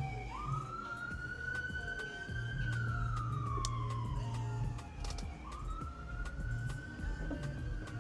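Siren wailing: two slow rise-and-fall cycles, each jumping up quickly, climbing gently, then sliding back down over a few seconds.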